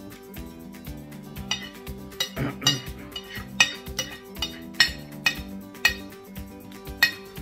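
A fork and spoon clink and scrape against a dinner plate during eating, with sharp ringing clinks about twice a second from about a second and a half in, over background music.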